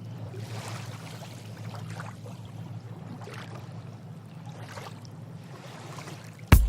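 Water rushing and splashing along a sailboat's hull, swelling and easing in waves over a low steady hum. A sharp loud hit comes near the end.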